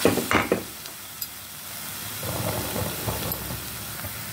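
Wooden spatula stirring and scraping thick onion masala paste around a stainless steel kadai while the paste sizzles in oil. The stirring strokes are loudest in the first half-second, then a quieter sizzle with softer scuffs.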